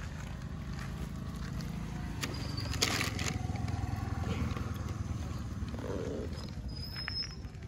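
A steady low engine rumble, with a brief loud burst of noise about three seconds in.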